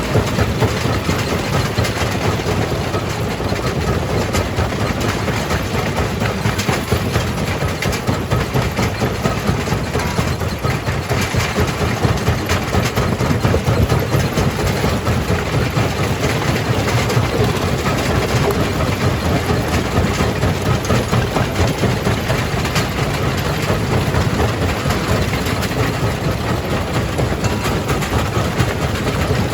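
Jaw crusher running and crushing rock: a loud, steady heavy-machinery drone with a dense clattering rattle of stone throughout.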